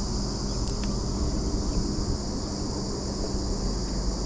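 Steady, high-pitched drone of a daytime insect chorus, with a low steady hum and rumble underneath.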